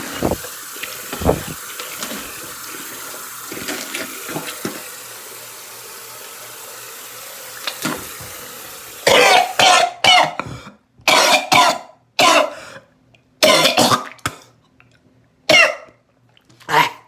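A tap runs steadily for about nine seconds, then a man breaks into a run of hard, loud coughs with short gaps between them, his throat burning from very hot, spicy food.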